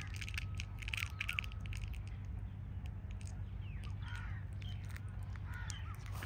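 Crows cawing about a second in, with other birds calling later, over a steady low hum.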